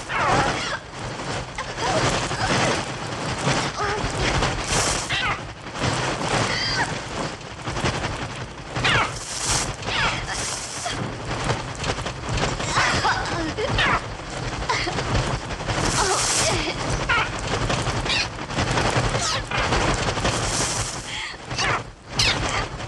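Mixtur-Trautonium electronic bird effects: a dense, unbroken mass of synthesized wing-flutter and rattle, shot through with short shrieking calls that glide in pitch and brighter hissing swells every few seconds.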